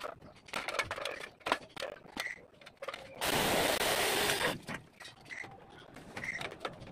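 A cordless battery-powered mini chainsaw runs in one burst of about a second and a half, a little past the middle, cutting into a tree branch. Scattered clicks and knocks from handling the saw and branches come before and after it.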